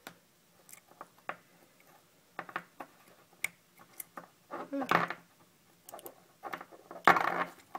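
Small parts of a GSport BMX ratchet hub clicking and clinking as they are handled and pulled apart. Scattered light clicks, with two louder, longer bursts of handling noise about five seconds in and near the end.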